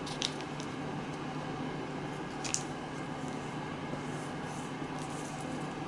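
A sheet of origami paper rustling and crackling under the fingers as it is folded and creased, with two sharper crackles, one just after the start and one about two and a half seconds in. A steady low hum runs underneath.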